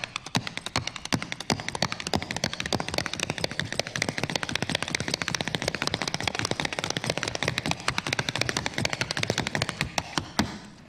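Fast tap dancing on wooden boards: a rapid, unbroken run of sharp tap-shoe strikes, many a second, with no music under it.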